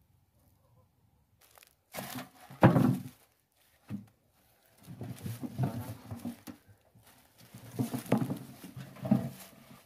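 Dry leaves and straw rustling and crunching in several bursts, the loudest about two to three seconds in, as a metal tin of fire-roasted potatoes is handled and tipped out onto the ground.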